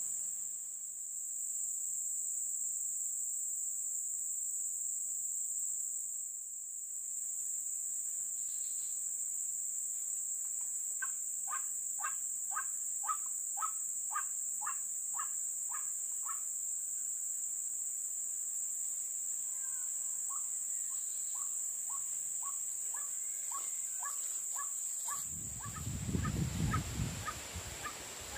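Steady high insect drone with runs of white-breasted waterhen calls, a quick series of short sharp notes at about two or three a second, in the middle and again near the end. Bursts of low rumble come in near the end.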